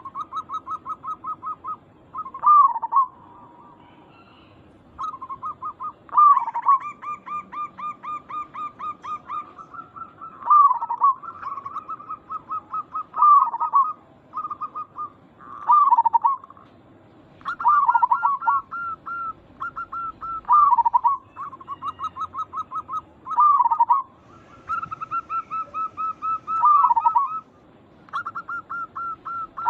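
Zebra doves (perkutut) cooing: rapid runs of short, even notes, broken about every two and a half seconds by a louder note that bends down in pitch.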